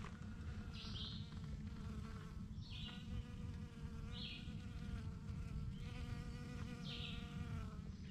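A flying insect buzzing steadily close by, its pitch wavering slightly, with four short high chirps over it.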